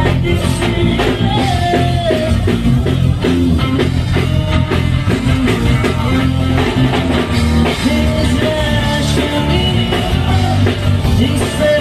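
Rock music with singing, guitar and drums, a steady beat throughout.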